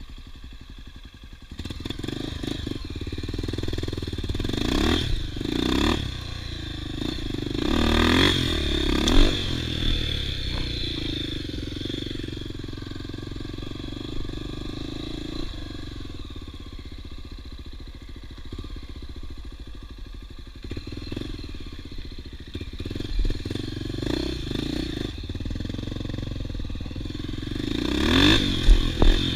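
Off-road motorcycle engine running and revving, its pitch sweeping up and down several times as the bike accelerates on trail terrain.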